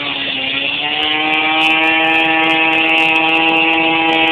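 Gas string trimmer's two-stroke engine running at high speed, its pitch rising a little about a second in and then holding steady.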